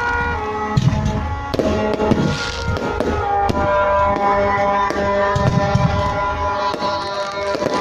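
Fireworks going off in frequent sharp pops and bangs, mixed with music playing.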